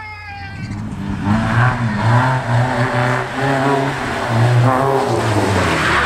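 Rally-prepared Volkswagen Golf GTI Mk2 engine pulling hard through a bend, its pitch stepping up and down as the revs rise and drop. A brief high squeal falls in pitch at the very start.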